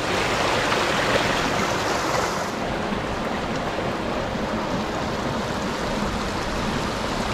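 Small mountain brook running over stones in a shallow rocky bed, a steady water sound, a little brighter in the first two and a half seconds.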